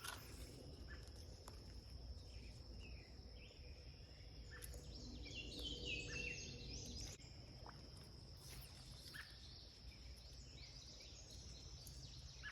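Faint outdoor ambience: a steady high insect trill throughout, with a bird calling in a run of short chirps a few seconds in, over a low steady rumble.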